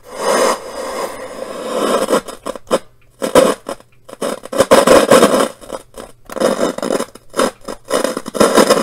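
Panasonic RF-2400 portable radio on FM, its speaker putting out loud bursts of noise that cut in and out abruptly as the thumbwheel volume control is rolled: the sign of a dirty volume potentiometer that barely works.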